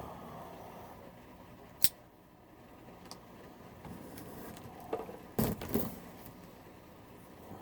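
Shipping box and packing being opened and handled: a sharp click about two seconds in, then a short cluster of knocks and scrapes about five seconds in.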